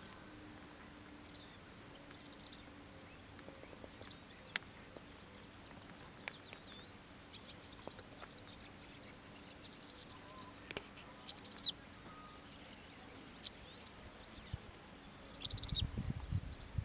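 Lesser short-toed lark singing: scattered short chirps and quick trills, faint, over a steady low hum. A brief low rumble comes near the end.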